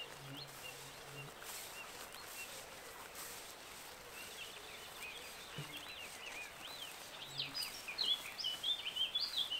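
A small songbird calling with short chirps and twittering pitch sweeps over a quiet outdoor background hiss. The calls are sparse at first and become busier and louder over the second half.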